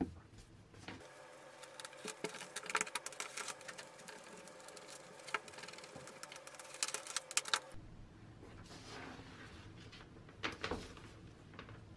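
Gloved hands rubbing and wiping a drill's rubber power cord: a dense run of rapid scrubbing rustles with small clicks, then a few sharp ticks of the cord and plug against a wooden table near the end.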